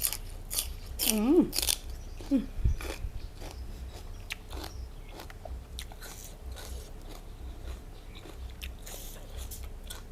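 A person biting into and chewing crunchy raw celery, with loud crunches in the first two seconds, then softer chewing.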